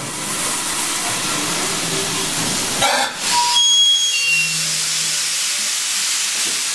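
Saddle-tank steam locomotive standing with a loud, steady hiss of escaping steam. A short, sharper burst of noise comes about three seconds in.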